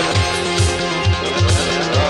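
Live electronic music: synthesizer chords and melody over a steady low electronic drum beat, about two hits a second.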